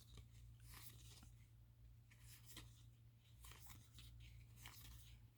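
Faint rustling of trading cards being handled and slid past one another by hand, in a string of short, soft strokes.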